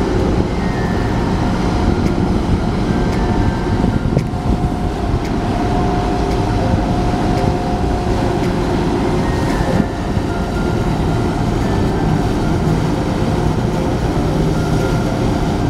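Steady low engine drone with a constant rush of water noise, and a few faint held tones coming and going over it.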